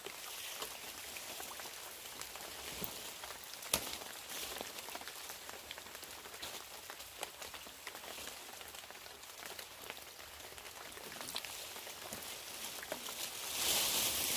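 Soft, steady outdoor hiss with many small scattered ticks and taps, one sharper knock a few seconds in, and the hiss swelling louder near the end.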